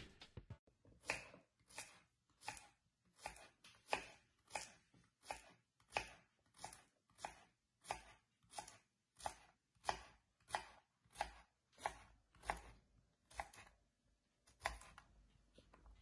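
Kitchen knife slicing zucchini into rounds on a wooden cutting board. It makes a steady run of short cuts, about three every two seconds, that stops near the end after one last, later cut.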